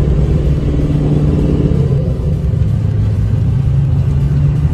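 Ford F-250 Super Duty pickup driving, heard from inside the cab: a steady low engine and road drone whose pitch shifts lower about two seconds in.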